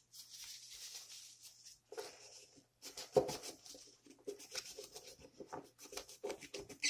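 Expo dry erase marker tip scratching over the painted body of a small diecast Hot Wheels car as it colours over the decals: a scratchy stretch at first, then many short back-and-forth strokes with a few sharp taps.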